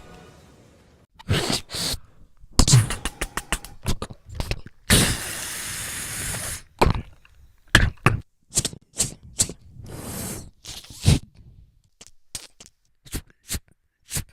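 Sound effects made with the mouth: a string of sharp clicks, pops and knocks, with a steady hiss lasting about two seconds near the middle.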